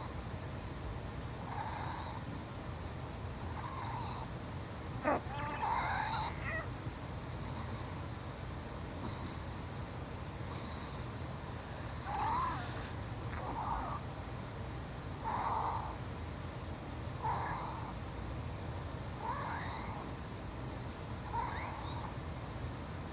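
Wheezing breaths, one short wheeze roughly every two seconds. There is a sharp click about five seconds in.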